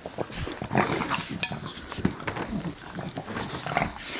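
Boston terrier puppies playing: brief puppy vocal sounds among scuffling, with many small clicks and knocks.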